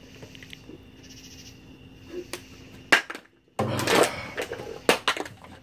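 Aluminium beer cans being finished and dropped or knocked: a sharp clank about three seconds in, then a loud rush of noise and two more short clanks, over a steady low hum.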